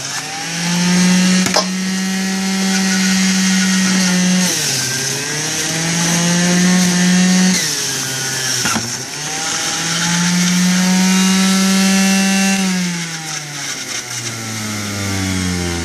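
Omega MegaMouth centrifugal pulp-ejection juicer running with a loud, steady motor whine. The pitch sags and recovers three times as the motor bogs under cucumber being fed into the chute, then falls away near the end as it winds down.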